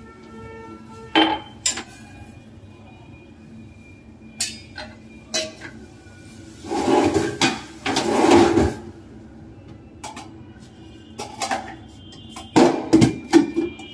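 Steel kitchen pots and containers clinking and knocking against each other and the stove. There are two longer rushing noises about seven and eight seconds in, and a quick run of ringing metal clatters near the end.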